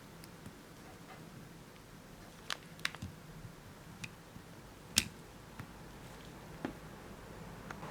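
A few scattered small clicks and knocks, the loudest about five seconds in, over a faint steady low hum.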